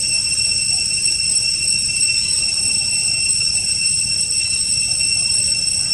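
A steady, high-pitched whine holding several tones at once, with a low rumble beneath it.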